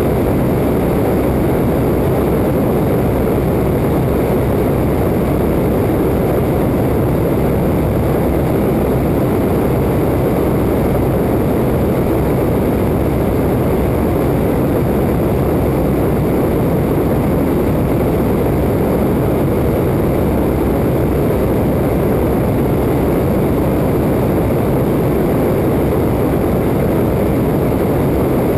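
Waco open-cockpit biplane in level flight: the radial engine and propeller running steadily, mixed with heavy wind rush over the outside-mounted microphone, a constant dense noise with no change in pitch.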